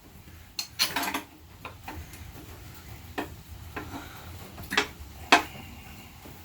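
Metal parts and tools clinking while an LS V8's oil pump pickup tube is worked loose: a cluster of sharp clinks about a second in, then single clinks every second or so, the loudest a little past five seconds.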